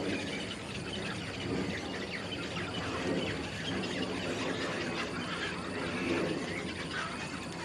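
Small birds chirping in many short calls over a steady background rumble.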